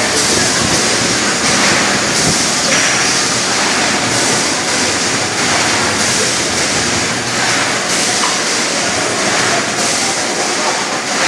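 Homemade peanut-candy cutting machine running: a loud, steady rushing noise with a few faint clicks.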